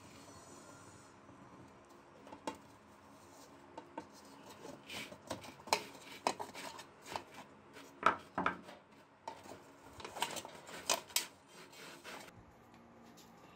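Metal hand tools scraping and clicking on a metal lamp shade as a nut is unscrewed with pliers while a screwdriver holds the bolt. The clicks and rubs are irregular, begin about two seconds in, are thickest in the second half, and stop shortly before the end.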